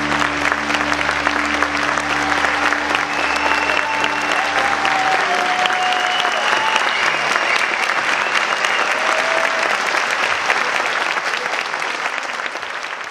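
Audience applauding steadily, with music underneath that stops about halfway through. A few voices call out over the clapping, which fades at the very end.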